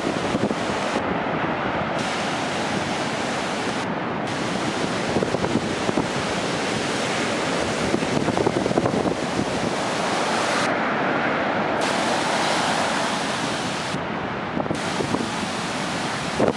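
Storm surf at high tide crashing continuously under hurricane-force wind, with gusts buffeting the microphone in short loud spikes.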